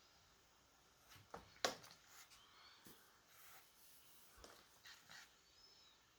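Near silence with a duck's faint sounds: a few soft clicks, the sharpest about a second and a half in, and a couple of brief, faint, high wheezy whistles. The wheezing is the sign of what the owner takes for a cold or infection.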